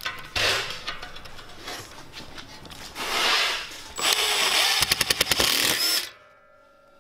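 Power drill driving a wood screw through a steel leg bracket into a plywood tabletop. Two short runs come first, then a longer run of about two seconds with a quick series of clicks as the screw goes home, stopping suddenly.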